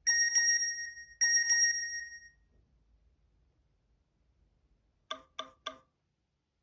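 Nokia E72 alert tones: two bright bell-like chimes about a second apart, each ringing out and fading, then, after a pause, three quick short beeps near the end.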